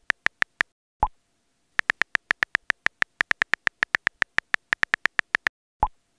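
iPhone on-screen keyboard clicking under quick typing, about six key taps a second, in two runs. A short pop, the sound of a WhatsApp message being sent, comes about a second in and again near the end.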